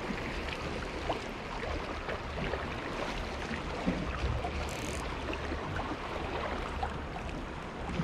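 Wind buffeting the microphone at the water's edge: a steady low rumble under a haze of wind and water noise, with scattered faint ticks.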